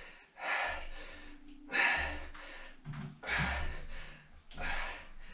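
A man breathing hard with effort through a resistance-band exercise: four loud, rushing exhalations about a second and a half apart.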